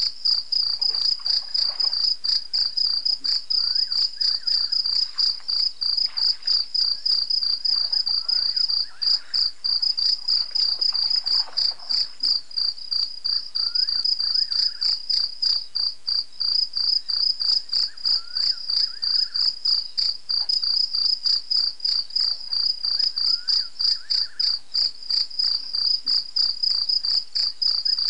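Crickets chirping in a steady, high-pitched, evenly pulsed chorus. Fainter short calls recur at a lower pitch every few seconds underneath.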